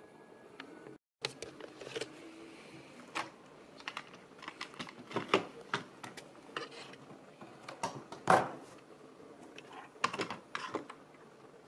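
Irregular clicks and knocks of vintage HO gauge model locomotives being handled and set down on a wooden table, plastic and metal tapping against wood and track, with one sharper knock a little past the middle.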